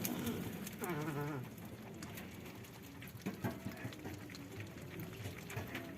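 A single wavering animal call, falling in pitch, about a second in, amid scattered light clicks and rustling.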